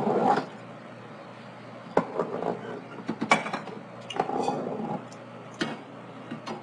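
Kitchen clatter: dishes, pans and utensils clinking and knocking, with a few sharp clicks scattered through.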